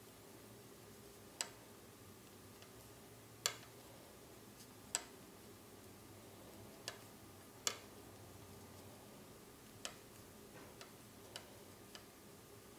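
Wooden knitting needles clicking against each other as stitches are knit, with about nine sharp clicks at irregular intervals, a second or two apart.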